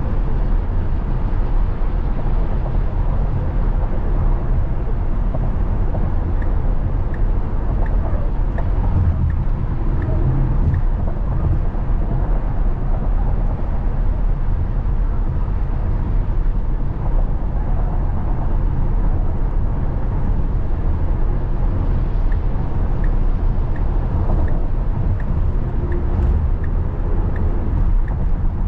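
Steady tyre and wind rumble inside a Tesla's cabin at highway speed, around 80 mph, with no engine note. Faint regular ticking comes and goes twice.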